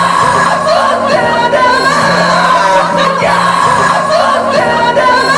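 Loud pop music with several voices singing over a steady bass line.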